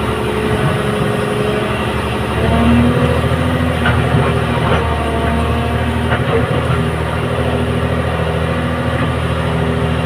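Hyundai Robex 300LC hydraulic excavator's diesel engine running under load, with a whine from the hydraulics that shifts in pitch as the boom and bucket move, swelling a little about two to three seconds in. A few faint clicks of gravel come near the middle as the bucket reaches the pile.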